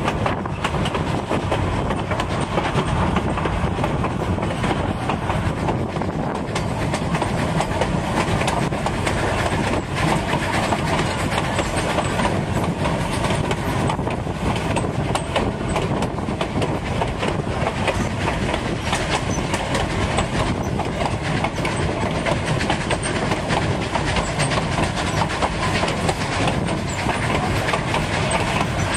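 Narrow-gauge train cars rolling along the track, heard from aboard: a steady rumble and rattle, with irregular light clicks from the wheels.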